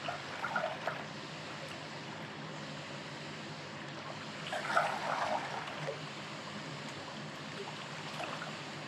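Steady rush of flowing river water and wind, with a couple of brief louder noises about half a second in and around five seconds in.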